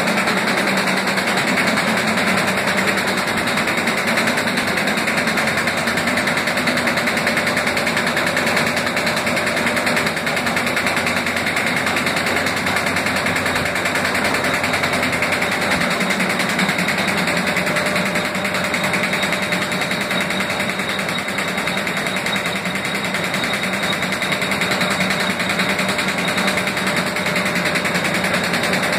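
Automatic paper bag making machine running steadily, with a dense, rapid mechanical rattle and a faint steady whine.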